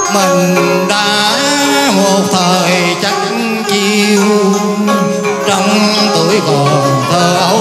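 Cải lương (Vietnamese traditional opera) music, loud and continuous, with a melody that slides and bends between notes.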